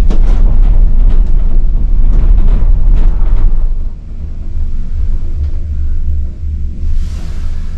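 Cable car gondola cabin running with a heavy, steady low rumble, just after leaving the station. Knocks and rattles come through in the first few seconds, then the sound gets quieter about four seconds in.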